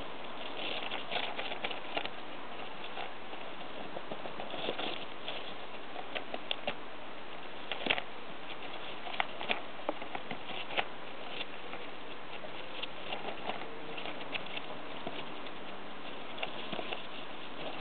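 A hamster gnawing and nosing at a cardboard clingfilm tube, shoving it through wood shavings: irregular scratchy rustling and papery crackles with a few sharper clicks, over a steady background hiss.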